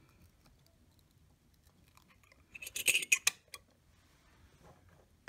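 A short cluster of sharp clicks and scraping, starting about two and a half seconds in and lasting about a second. It comes from the freshly separated 8700K heat spreader and CPU being handled and lifted out of the metal base of a Rockit 88 delid tool.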